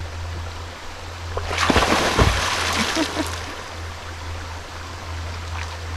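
A person plunging into a creek swimming hole: a loud splash about one and a half seconds in that dies away over the next second or so, over the steady rush of flowing water.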